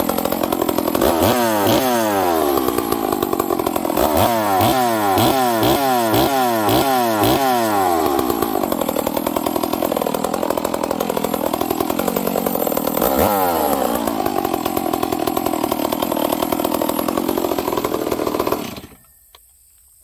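Stihl 038 chainsaw's two-stroke engine running freshly warmed after a cold start. It is blipped on the throttle several times, with a quick run of rev-ups and drops in the first half. Between the blips the idle wavers in pitch, and the engine shuts off suddenly near the end.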